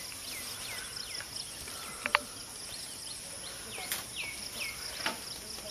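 Outdoor ambience: a steady high-pitched insect buzz, with a bird repeating short falling chirps, about four in a row early on and another run of about four near the end.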